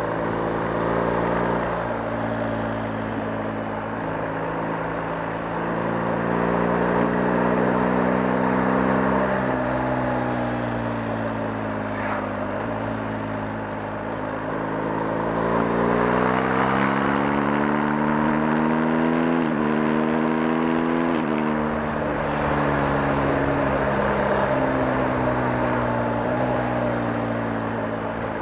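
BMW R 1250 GS's boxer twin engine running under way, its pitch climbing and falling as the revs change, with a few sudden drops in pitch.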